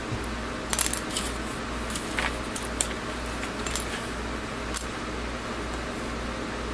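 Small plastic model-kit parts clicking and clinking as they are handled and set down: a quick cluster about a second in, then scattered single clicks, over a steady low hum.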